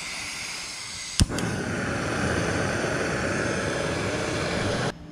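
Integrated canister camping stove: gas hissing from the burner, a single sharp click of the piezo igniter about a second in, then the lit burner running with a steady, louder noise until it cuts off abruptly near the end.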